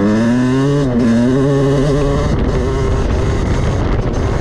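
Yamaha YZ250 single-cylinder two-stroke engine revving hard under acceleration: its pitch climbs, drops briefly about a second in, then climbs again before fading into a rough, noisy wash. The carburettor has just been adjusted, and the engine is judged very well tuned.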